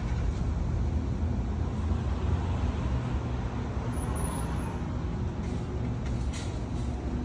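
Steady low rumble of outdoor ambient noise, with a short faint high-pitched tone about four seconds in.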